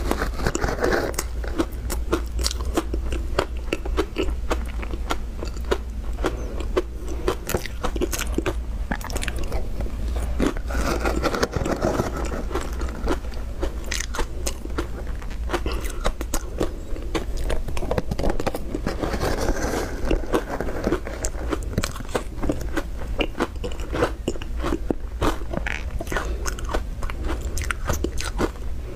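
Close-up crunching and chewing of crushed pink ice dusted with milk powder: a dense, continuous run of crackly bites.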